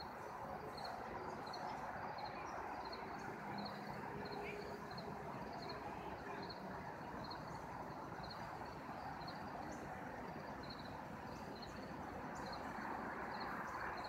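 Outdoor morning ambience: a steady, faint background noise with a small high-pitched chirp repeating evenly, about twice a second.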